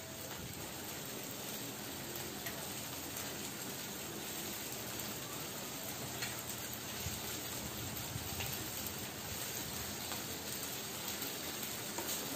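Pork belly strips sizzling on an electric grill plate: a steady hiss with a few faint pops and crackles.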